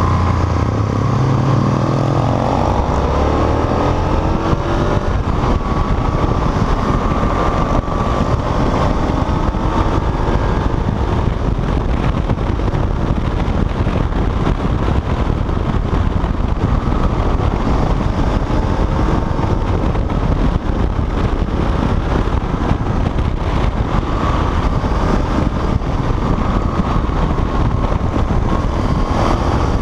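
A motorcycle engine under way, its pitch rising and falling with the throttle through the bends, under heavy wind noise on the bike-mounted microphone.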